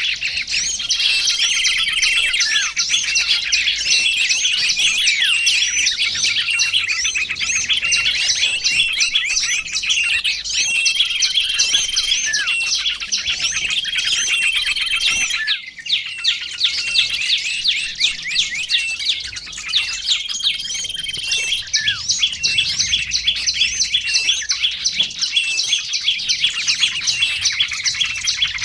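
Small songbirds chirping in a dense, rapid twittering chorus, used as a bird-lure recording, with a short flat whistled note recurring every few seconds. The chorus breaks off for a moment about halfway through and then resumes.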